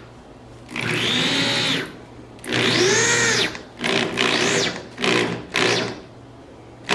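Power drill driving screws into wooden boards in repeated trigger pulls: two runs of about a second, then four short bursts, the motor whine rising and falling in pitch with each pull.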